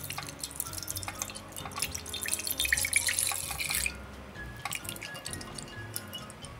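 Milk poured into a pot of caramel, the liquid splashing and crackling, loudest about three seconds in, then a silicone spatula stirring with scattered light clicks. Everything plays at three times normal speed, with soft background music underneath.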